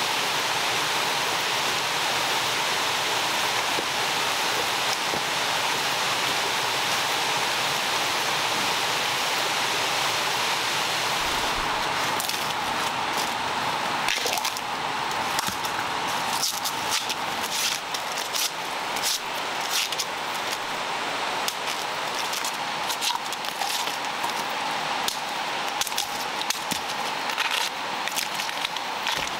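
An even hiss for the first twelve seconds or so. Then a long irregular run of sharp snaps, clicks and crackles as a knife cuts bamboo shoots and their husks are torn off.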